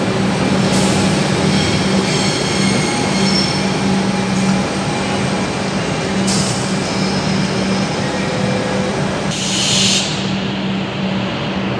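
A Melbourne Metro Comeng electric suburban train moving along the platform with a steady electric hum over the rumble of its wheels. Thin wheel squeals come a few seconds in, and short hissing bursts come near the start, around the middle and again about ten seconds in.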